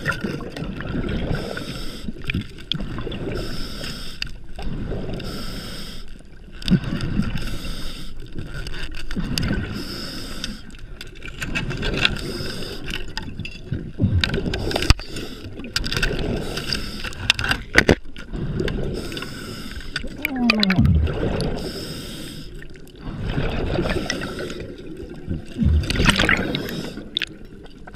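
Underwater noise picked up by a submerged camera: water rushing over the housing in uneven surges, with a few low rumbles.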